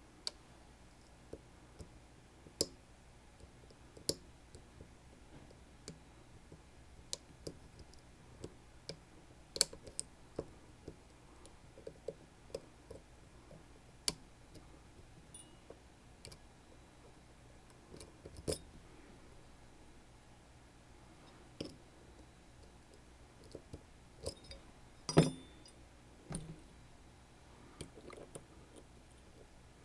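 Irregular small metallic clicks and taps of picking tools working in a Sargent Keso lock, with one louder clack about 25 seconds in.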